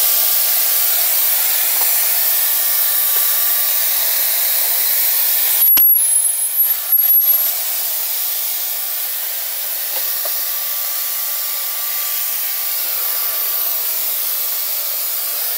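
The air blower in a Bestway Lay-Z-Spa Miami pump unit runs steadily, blowing air through a hose to inflate the spa's inflatable cover. The rush of air is briefly uneven about six seconds in, and it cuts off at the end.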